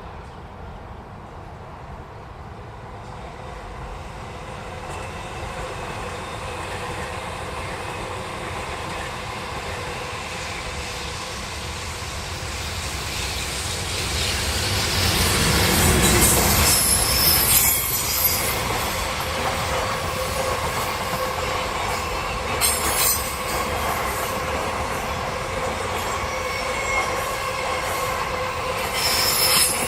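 A train approaches and passes, growing louder to a peak about halfway through and staying loud after it. Its wheels squeal with steady high tones over a rolling rumble, and a few sharp clanks come from the wheels over rail joints.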